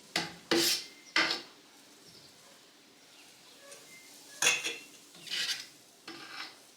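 Metal kitchen utensils clinking and scraping against a pot and glass canning jars, in about six short separate strokes, three close together at the start and three more near the end, as jam is ladled into jars and lids are fitted.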